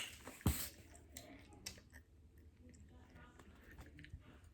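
Faint handling noises of soft toy putty being worked out of a small plastic container: scattered clicks and squishing, with a sharper knock about half a second in.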